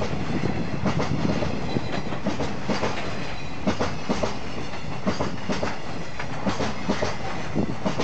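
Container flatcars of a freight train rolling past close by, their wheels clacking repeatedly over rail joints over a steady rumble.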